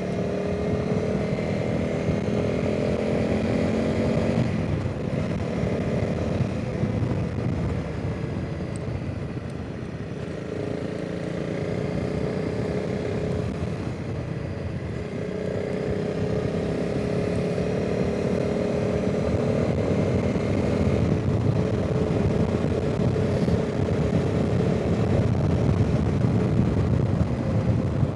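Honda CRF300 Rally's single-cylinder engine running under way while the bike is ridden along a road, its note easing and picking up again several times with the throttle. Heavy wind noise on the microphone.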